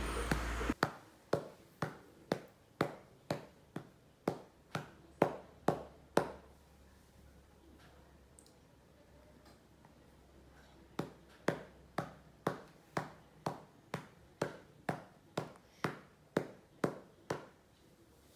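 A cupped hand patting a newborn baby's back, making a 'bộp bộp' sound, to bring up a burp after feeding. The pats come evenly at about two a second, stop for about five seconds midway, then start again.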